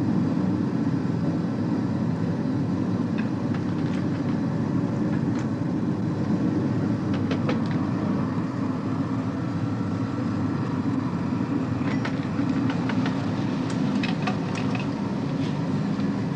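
Scattered small clicks and taps from hands working on an electronic engine-management module and its connectors with a screwdriver, over a steady low rumble.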